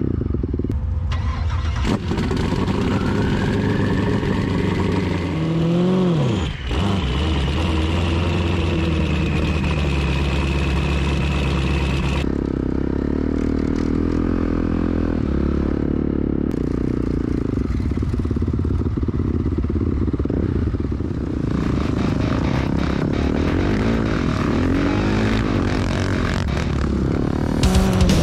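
Honda CRF450R dirt bike's single-cylinder four-stroke engine being ridden: rising in pitch as it pulls away, dropping sharply about six seconds in, then running steadily at speed.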